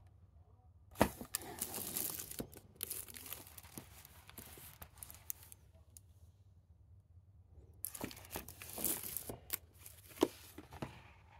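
Plastic Blu-ray cases being handled and slid out from a row on a shelf: two spells of rustling and scraping with sharp clicks, one about a second in and another from about eight seconds in.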